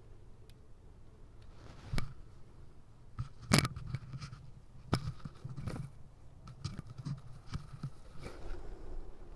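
Handling noise: scattered clicks, taps and short rustles, the sharpest click about three and a half seconds in, over a faint low hum.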